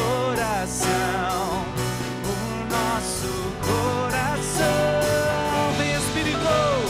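Contemporary worship band music with a steady beat and guitar under a melody line that slides and bends in pitch.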